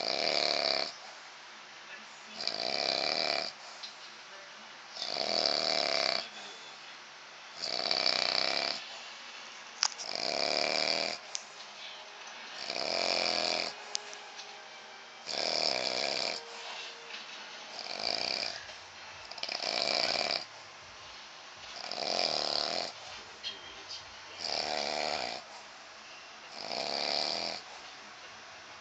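A man snoring in a steady rhythm, about one rasping snore every two to two and a half seconds, with quieter breaths between them.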